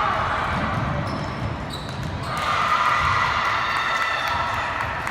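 Basketball game in a gym: a ball bouncing on the hardwood court, short high sneaker squeaks, and players' and spectators' voices echoing in the hall.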